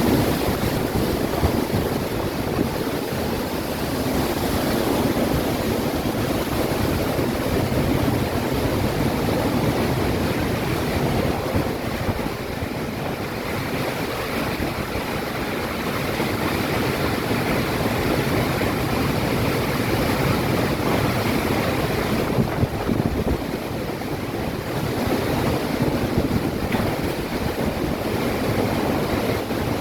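Heavy rainstorm with strong wind: a steady, dense rush of rain and gusts that swells and eases a little, with wind buffeting the microphone.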